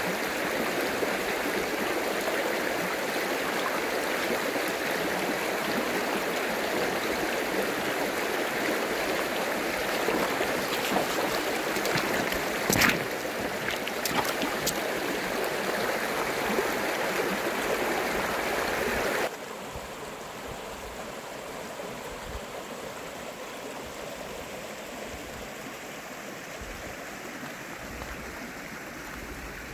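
Water of a shallow, rocky stream running over stones in a steady rush. A single sharp knock comes a little before halfway. About two-thirds through, the rush drops suddenly to a quieter level and carries on.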